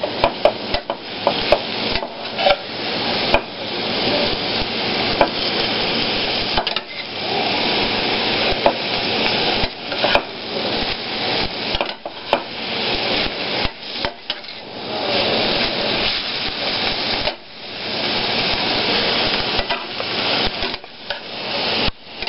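Marinated shredded beef and onions sizzling in a hot metal pan over medium-high heat, with a spatula scraping and knocking against the pan as they are stirred together.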